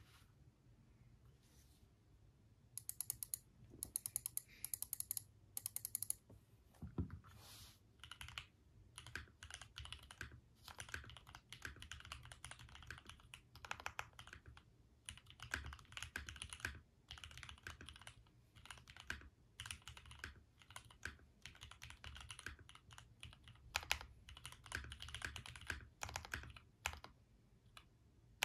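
Custom Tofu65 mechanical keyboard being typed on: an acrylic case, an aluminium plate and lubed Gateron Milky Yellow switches give clacky keystrokes. Quick bursts of sharp clicks come a few seconds in, then steady, continuous typing from about eight seconds on.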